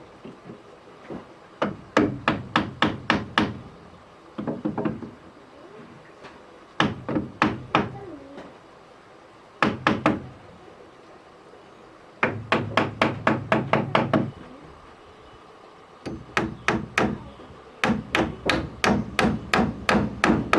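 Hammer striking wood in quick runs of blows, about four to five a second, with short pauses between the runs.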